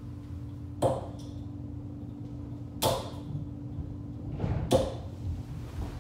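Three steel-tip darts thudding one after another into a steel-tip dartboard, about two seconds apart.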